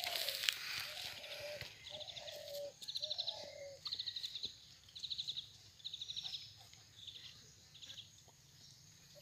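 Birds calling: low cooing notes in the first few seconds, then a series of short, high, rapid trills repeating about once a second. A brief rustle near the start.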